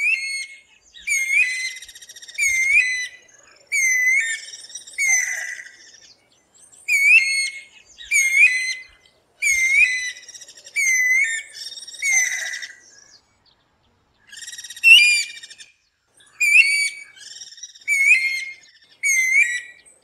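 Guira cuckoo calling: a long run of loud whistled notes, about one a second, broken by two short pauses.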